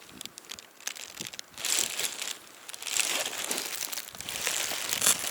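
Rustling and crinkling handling noise, with scattered small clicks in the first second or so, then longer bursts of rustle.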